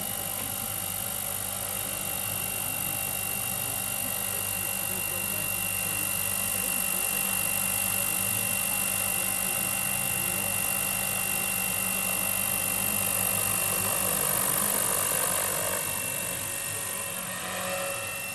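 Radio-controlled scale Airwolf (Bell 222) model helicopter in flight: a steady rotor hum with a high, even motor whine, easing off a little near the end.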